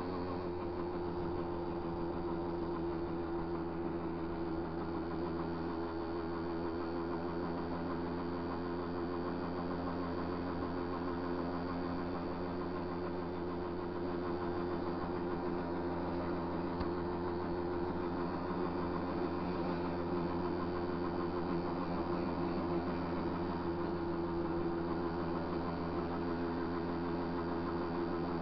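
A small motorbike engine running steadily as it rides along at a constant speed, with no revving or gear changes heard.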